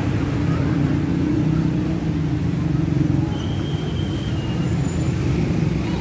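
Bus diesel engine running steadily amid road traffic.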